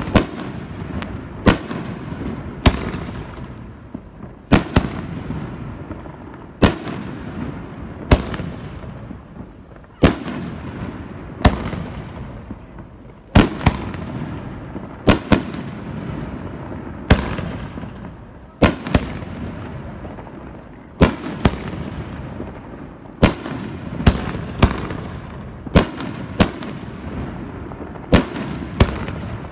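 Consumer canister firework shells fired in steady succession: a sharp bursting report about every second or two, each trailing off in a rumbling echo before the next.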